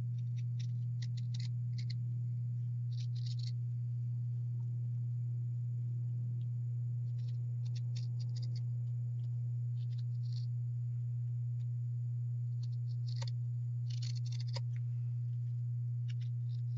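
Scissors snipping through burlap fabric in short runs of quick cuts, several pauses between them, over a steady low hum that is the loudest sound throughout.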